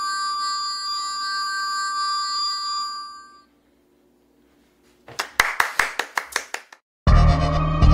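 Water-filled wine glasses rubbed at the rim ring with several steady, pure tones held together, which die away about three and a half seconds in. After a short silence comes a quick run of about ten hand claps, and loud music starts abruptly near the end.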